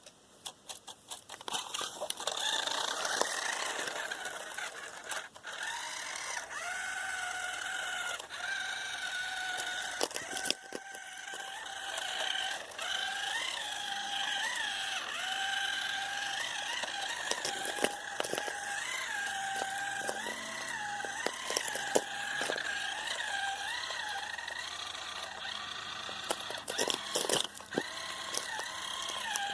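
Electric motor and gears of an RC car whining steadily, the pitch jumping up briefly again and again as the throttle is blipped, with scattered sharp clicks and knocks.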